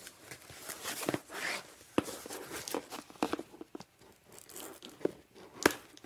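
Phone packaging being handled and torn open by hand: irregular rustling, crinkling and tearing scrapes with a few sharp clicks, the sharpest about two seconds in and near the end.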